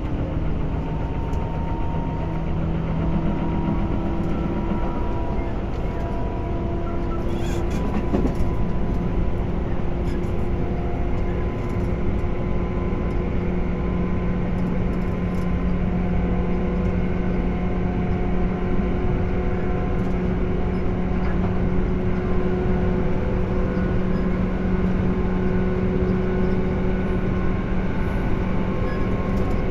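Tobu 10030 series electric commuter train running, heard inside the car: steady wheel and rail noise under a motor and gear hum that rises slowly in pitch through the first half, then holds steady. A few sharp clicks come about eight seconds in.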